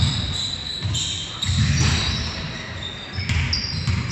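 Basketball being dribbled on a wooden gym floor, with sneakers squeaking several times as players run and cut in a large hall.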